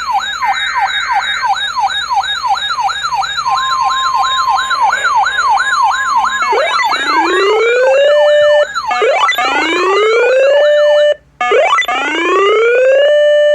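Electronic siren, first a fast yelp sweeping up and down about three times a second, then three slower rising wails that climb, hold and cut off abruptly.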